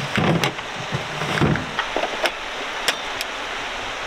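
Several short knocks and clicks of hard plastic tool cases being handled on plywood shelves, over a steady hiss.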